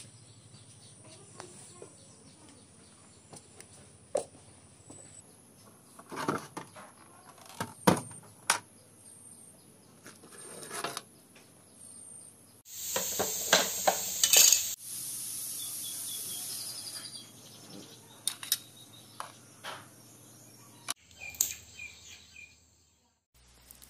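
Scattered knocks and clatters of hard objects being handled and moved about, with a louder rough, hissing noise lasting about two seconds near the middle.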